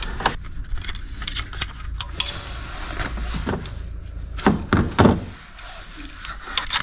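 Light metallic clicks and clinks as a glow plug held on a magnetic pick-up tool is worked down into its bore in the diesel cylinder head, with two louder knocks about four and a half and five seconds in.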